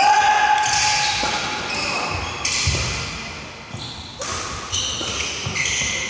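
Court shoes squeaking on a sports hall floor in many short, high squeals, with a few sharp racket hits on shuttlecocks, echoing in a large hall.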